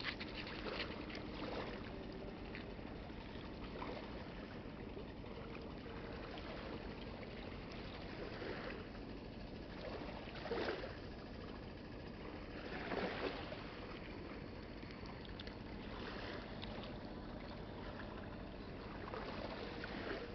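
Steady outdoor riverside background noise, with a few brief louder sounds about ten and thirteen seconds in.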